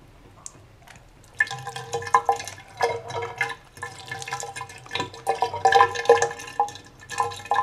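Water pouring out of a tilted plastic tub into a sink, splashing and gurgling, starting about a second and a half in.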